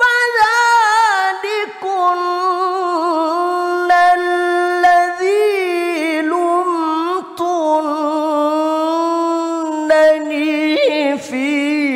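A man chanting the Qur'an in the melodic mujawwad style into a microphone. He draws out long held notes with wavering ornamental turns, with a few short breaks, and the pitch sinks slightly towards the end.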